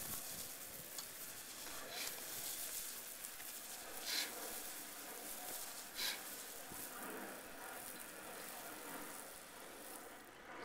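Steady hiss of a hose-fed spray wand wetting clay barrel roof tiles with a mild chlorine-and-TSP cleaning solution, with two brief louder bursts about four and six seconds in.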